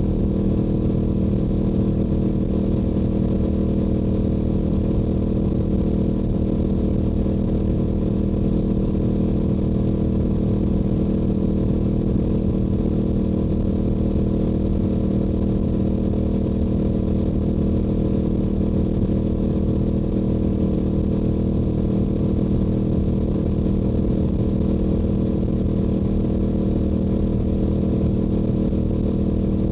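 Stock Yamaha YZF-R7's 689 cc parallel-twin engine running at a steady speed through its stock exhaust. The pitch and loudness hold even, with no rise or fall in revs.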